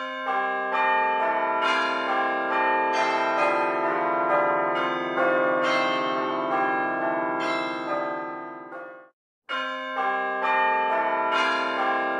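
Chiming bell music: many overlapping ringing notes struck in quick succession. It cuts to silence for a moment about nine seconds in, then starts again.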